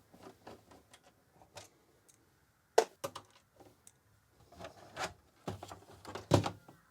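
Irregular clicks and knocks of an Amiga 1200's plastic case and keyboard being handled, with two louder knocks, about three seconds and six seconds in.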